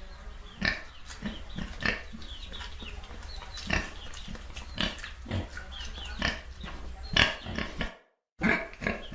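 Pigs oinking and grunting in short calls, one after another, over a steady low hum; about eight seconds in the sound cuts out for a moment, then the calls start again.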